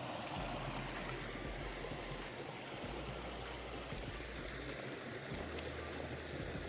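Shallow creek running and trickling over stones, a steady wash of water.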